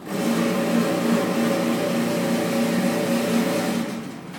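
A small electric motor whirring steadily for nearly four seconds, then winding down near the end.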